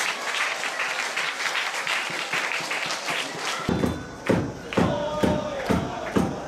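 Football stadium crowd clapping and cheering. After a cut about three and a half seconds in, a supporters' drum beats about twice a second under the crowd's chanting.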